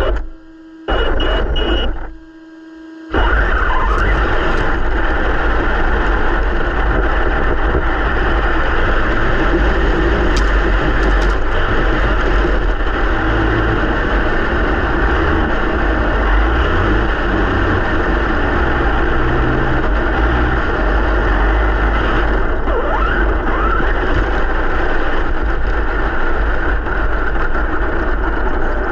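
Traxxas TRX-4 Sport RC crawler driving, its electric motor and gearbox running with a loud, dense mechanical noise, picked up by a camera mounted on the truck's body. The noise cuts out twice briefly in the first few seconds, then runs on steadily.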